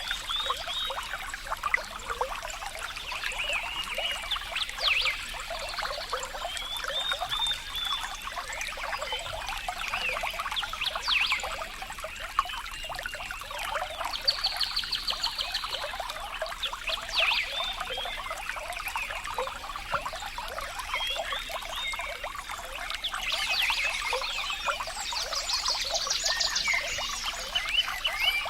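Water trickling: a dense, continuous patter of small drips and plops. Rapid high trilling calls come in twice, briefly about halfway through and longer near the end.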